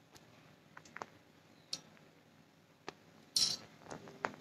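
Small bowls, a spoon and plastic containers being handled on a table: a few scattered light clicks and taps, with a brief scuffing rustle about three and a half seconds in.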